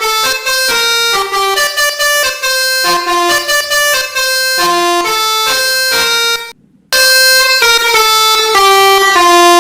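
Bus 'telolet' Basuri multi-tone melody horn playing a tune of quick, changing reedy notes. It cuts out for a moment about two-thirds of the way through, then carries on louder.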